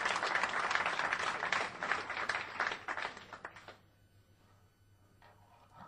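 An audience clapping, which dies away about four seconds in.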